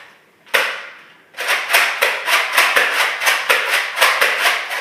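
A Nerf foam-dart blaster fires with one sharp snap, then clacks quickly and evenly, about four or five times a second, for about three seconds.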